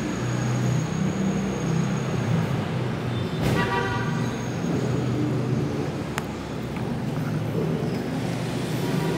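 Steady road-traffic rumble, with a short vehicle-horn toot about three and a half seconds in and a single click near six seconds.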